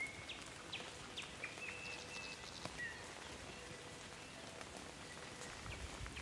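Light rain falling, with scattered drops tapping, and a few short high bird chirps in the first three seconds.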